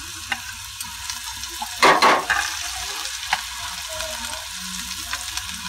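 Chopped onion sizzling in butter in an aluminium pressure-cooker pan, with a steel spoon clinking and scraping as chopped ginger and garlic are tipped in from a plate. There is a louder rush of sound about two seconds in.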